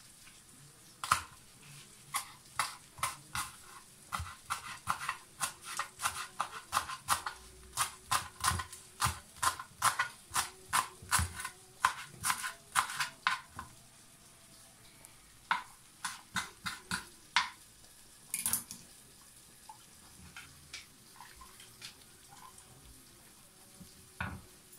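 Kitchen knife chopping spring onions on a plastic cutting board: a quick run of sharp knocks, about two or three a second, that stops a little past halfway, then a few slower, scattered chops.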